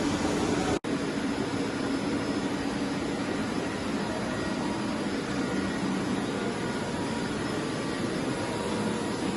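Steady hum and hiss of running industrial machinery, with faint steady tones under it. The sound cuts out for an instant about a second in.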